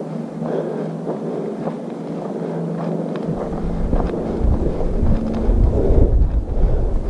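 Footsteps of a hiker walking on a dirt trail, faint and regular. Wind begins rumbling on the camera's microphone about three seconds in and grows louder.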